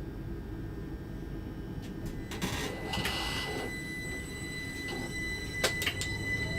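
Class 357 electric multiple unit standing with a steady low rumble, heard from between the carriages. About two and a half seconds in comes a burst of air hiss, and a steady high whine comes in and holds. A few sharp clicks follow near the end, as the train readies to pull away.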